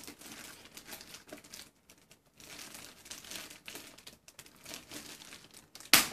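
Clear plastic bag crinkling as it is worked and pulled off a boxed hot air rework station unit, with a short lull about two seconds in and one sharp, loud snap near the end.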